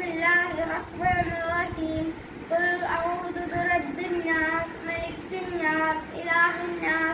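A young boy singing a devotional madh song solo, holding long, ornamented notes that bend up and down.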